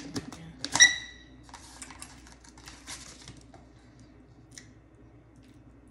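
Clicks and rustles of a paper takeout pasta bowl and its lid being handled and opened, with one loud ringing clink about a second in. After about three and a half seconds it thins to a few faint ticks.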